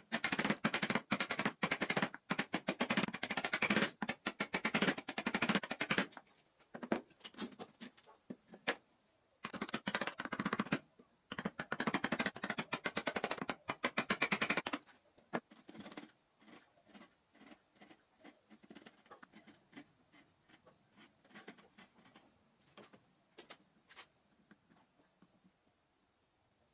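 A flat-bladed hand tool scraping and chipping out the waste between saw kerfs in a timber notch: rapid, sharp strokes in two long runs, then fainter, scattered clicks.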